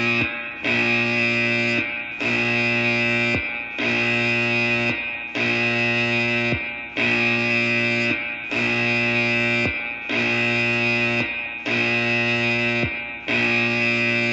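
A harsh, distorted buzzing tone, the same steady chord-like buzz repeated in pulses about every one and a half seconds. It sounds like a looping alert tone.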